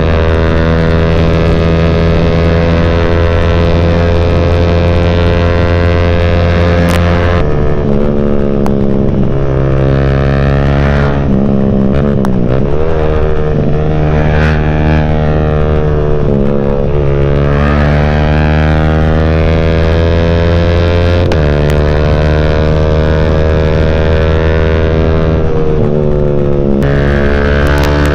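Yamaha Y15ZR single-cylinder four-stroke engine through an aftermarket CJ Ipoh exhaust, ridden on the road. The exhaust note holds steady, then dips and climbs again several times as the throttle and gears change.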